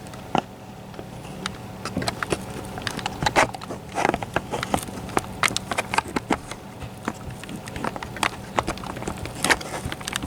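Irregular handling clicks and knocks as a camera is remounted on its mount, with several louder knocks among many light taps.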